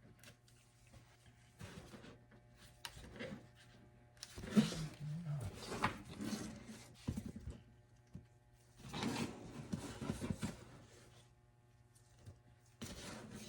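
Plastic armor parts being handled and fitted around a boot: rubbing, scraping and light clicks in two bursts, over a faint steady hum.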